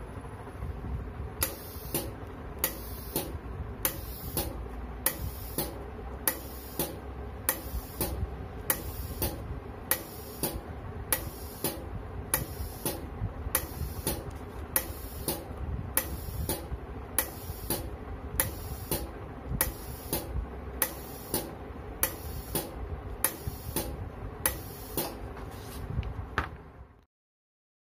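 Flovell F01D12 pneumatic glue dispenser firing timed shots by itself: a short sharp click roughly every 0.6 seconds, each one a pulse of air that pushes a dot of glue from the syringe. A steady low hum runs underneath, and the clicks stop about a second before the end.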